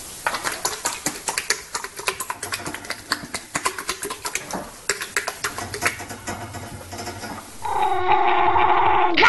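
Rapid, irregular clicking and scratching for most of the stretch, then, near the end, a loud, sustained animal cry with a wavering pitch.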